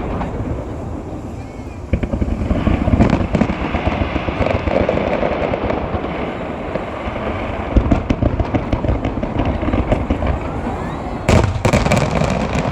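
Aerial fireworks shells bursting over the sea, with scattered booms and a rapid cluster of bangs near the end, over the murmur of a crowd.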